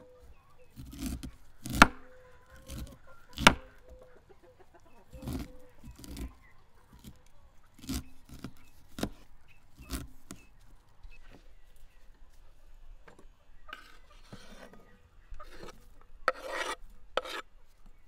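Knife chopping on a wooden board: sharp, irregular knocks one to two seconds apart, then a few seconds of scraping and rasping near the end.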